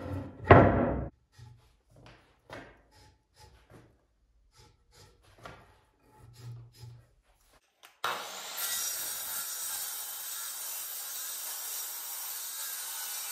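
A wooden plank knocks twice onto a workbench, followed by faint scratches and taps as it is marked. About eight seconds in, a Metabo sliding miter saw starts abruptly and runs steadily with its circular blade cutting through the board.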